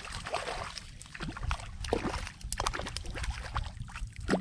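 Hooked sharpnose shark thrashing and splashing at the surface beside a kayak as it is reeled in, in irregular splashes with the loudest one near the end.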